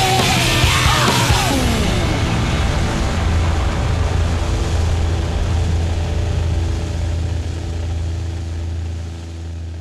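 Background music ending: a falling slide in the first two seconds, then a low held chord that slowly fades out.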